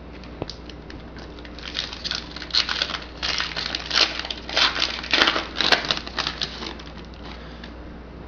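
Foil wrapper of a 2011 Bowman Chrome card pack crinkling and tearing as it is opened by hand, in a run of irregular crackles that starts about two seconds in and stops a second or two before the end.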